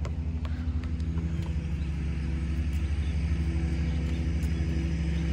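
A nearby engine running steadily with a low rumble, growing slowly louder. A basketball bounces on the court a few times in the first second and a half.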